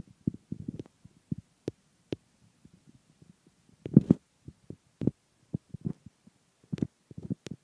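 A Shih Tzu tussling with a plush elephant hand puppet: irregular short low huffs and thumps with a few sharp clicks, loudest about four seconds in.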